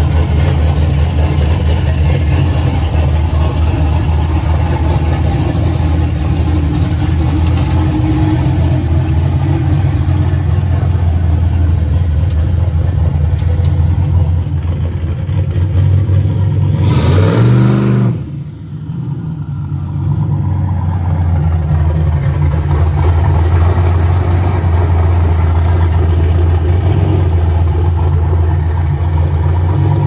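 Engine of a turbocharged Chevy S10 pickup idling loud and steady. About halfway through it is revved sharply once, then drops back to idle.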